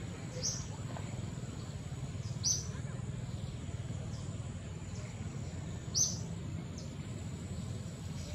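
Outdoor woodland ambience: short, high bird chirps every couple of seconds over a steady low background rumble.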